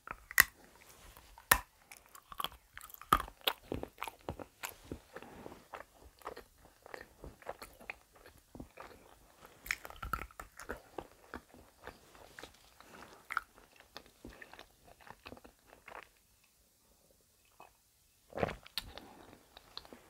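Lindt white chocolate bunny being bitten and chewed close to the microphone. Several sharp snaps in the first few seconds, then steady crunchy chewing that fades to a brief lull before one more burst of chewing near the end.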